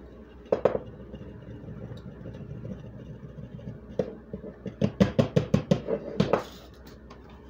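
Plastic coffee grinder cup tapped against the mouth of a glass mason jar to knock ground powder out. There is a single knock about half a second in, then a quick run of taps, about six a second, from about five to six and a half seconds in.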